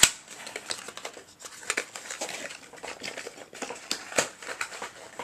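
Fingers prying open and handling a small cardboard puzzle box: irregular crinkling, scraping and light clicks, with one sharp snap right at the start.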